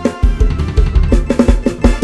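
Lam sing dance music from a programmed backing track: a steady kick drum and bass under keyboard parts, with a quick drum fill of about six strokes in the second half.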